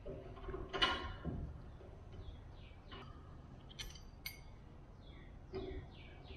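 Small sprayer-boom parts being handled during assembly: clinking and clicking, with a louder clatter about a second in and two sharp clicks around the middle. Groups of short, quick, falling chirps like a small bird's sound through the rest.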